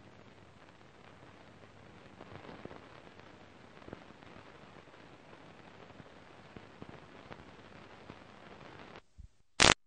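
Faint steady hiss with scattered small crackles from an old film soundtrack played off videotape, with no music. Near the end it drops out and a short, very loud burst of static sounds as the recording cuts off.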